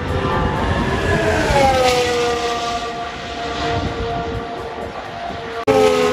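Formula 1 cars' 1.6-litre V6 turbo-hybrid engines running on track. The engine note drops sharply in pitch about a second and a half in, then holds steady. Near the end there is a sudden break, and a second engine note comes in.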